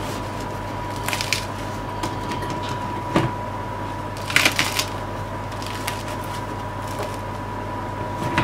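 Crisp crust of freshly baked sourdough loaves crackling and rustling in short bursts as hands squeeze and turn them, with a soft knock about three seconds in. A steady electrical hum with a thin high tone lies underneath.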